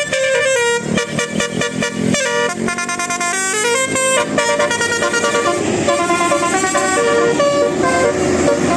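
Bus telolet horn, a Basuri multi-note musical air horn, playing a tune: a quick run of short staccato notes for about four seconds, then longer held notes over a rushing noise.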